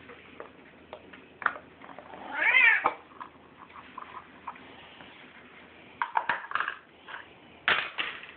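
Bengal cat meowing once, a single call that rises and falls about two seconds in. A few sharp clicks and knocks follow, in a cluster about six seconds in and again near the end.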